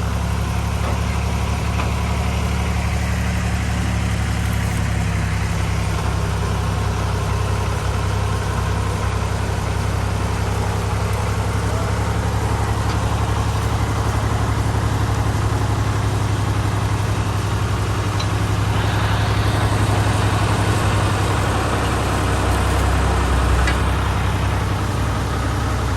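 Fiat 480 tractor's diesel engine running steadily, with a constant low drone that swells slightly about 19 seconds in and eases near the end.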